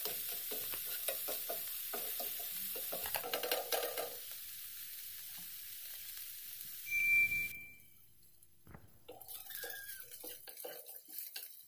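Chopped green onion, parsley and garlic sizzling in hot oil in a nonstick frying pan while a wooden spatula stirs and scrapes them. A brief high squeal comes about seven seconds in, then the sizzle cuts off suddenly. After that comes quieter scraping and knocking of the wooden spatula turning boiled cauliflower florets in the pan.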